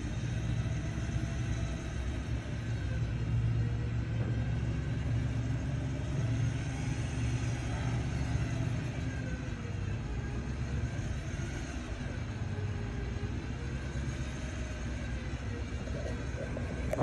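A Ford Super Duty pickup's engine runs with a steady low rumble while its front-mounted Badland 12,000 lb electric winch reels in cable, hauling the truck and its loaded firewood trailer out of soft ground. A faint whine wavers up and down under the rumble.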